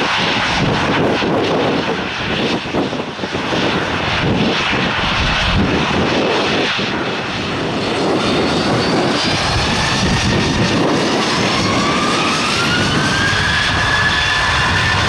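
Jet airliner's engines running loud and steady, with a whine that rises in pitch over the last few seconds.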